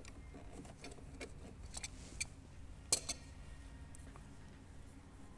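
Scattered light clicks and taps of hand tools on metal engine fittings, with one sharper click about halfway through, over a faint steady low hum.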